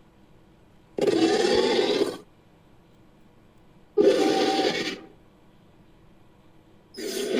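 Animal calls: three harsh, rough bursts of about a second each, some three seconds apart.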